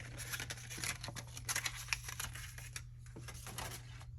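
Pistol parts and packaging being handled by hand: rapid, irregular light clicks and rustling, busiest at first and thinning out near the end.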